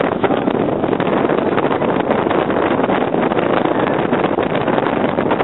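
Steady rush of wind buffeting the microphone, mixed with the running noise of a small truck, heard from the open cargo bed while it drives along.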